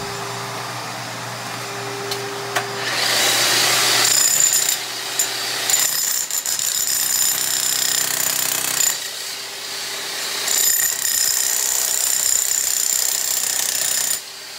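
Electric demolition hammer with a chisel bit chipping into a concrete slab floor, hammering in long bursts with a few short pauses. It starts about three seconds in, after a steady hum, and stops just before the end.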